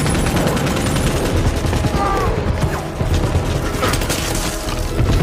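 Rapid automatic rifle fire from several guns, with shots overlapping in a continuous volley, mixed with shouting in a film action soundtrack.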